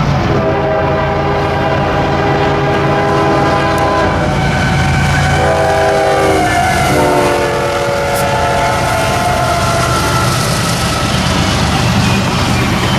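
Union Pacific freight locomotive sounding its multi-chime air horn: a long blast, a short one about five seconds in, then another long blast lower in pitch. Under it runs the steady heavy rumble of the diesel locomotive and the wheels of the double-stack container train passing.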